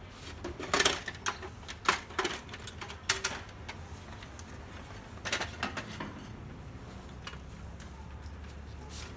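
Plastic clicks and clacks as the top cover of an HP LaserJet Pro M12a printer is pried free of its clips and lifted off the metal chassis: a cluster of sharp snaps in the first three seconds and a few more about five seconds in.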